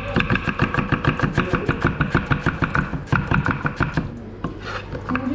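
A machine running with a fast, even beat of about six pulses a second.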